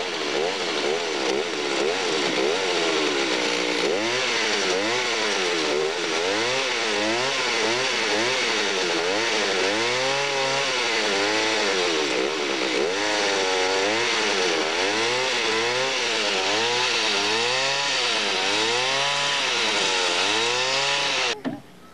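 Chainsaw engine running, revved up and down over and over, about once a second. The sound cuts off suddenly near the end.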